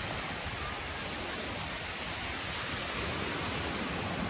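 Steady rushing noise of sea surf and wind, an even wash with no single wave or gust standing out.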